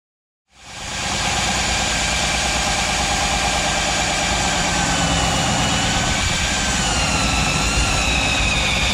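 Electric drill with a hole saw running steadily as it cuts up into wood framing. It starts about half a second in, and its whine wavers slowly in pitch as the cutter loads.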